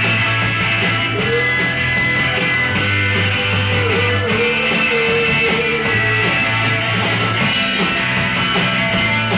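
Rock band playing live: electric guitars over bass guitar and a steady drum beat.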